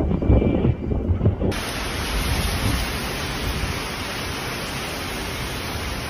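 Storm wind buffeting the microphone with low rumbling gusts, then, about a second and a half in, an abrupt cut to a steady loud hiss of wind-driven heavy rain.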